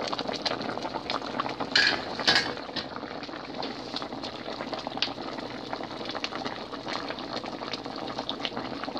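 A pot of sinigang (tamarind fish soup with eggplant) bubbling at a rolling boil, a steady crackling bubble with many small pops. Two brief sharp clinks about two seconds in.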